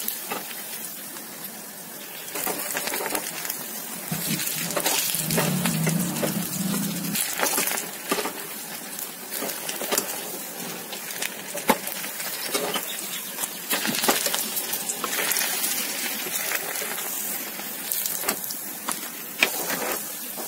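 Paneer kofta balls deep-frying in mustard oil in a small pan: the oil sizzling around them, with scattered sharp clicks of a steel ladle against the pan as the balls are scooped out.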